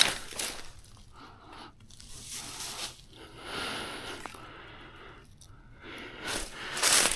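Soft, irregular rustling and crunching noises that come and go, louder near the end.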